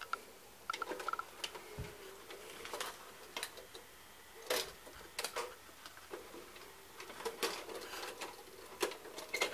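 Irregular light clicks and taps from a hand handling a VCR and the cables around it, a few sharper knocks among them.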